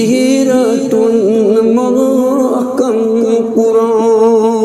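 Man singing a Kashmiri manqabat in long, wavering, ornamented notes, over a steady held drone.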